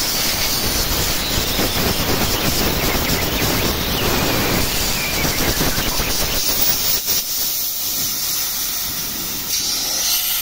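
Loud steady hiss of gas rushing out through the hoses of an A/C manifold gauge set, which cuts off abruptly at the end.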